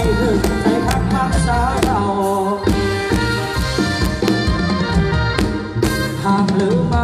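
Live Thai band music played loud through a large stage sound system, with a heavy bass and a steady drum beat under a melodic instrument line, heard through a mobile phone's microphone.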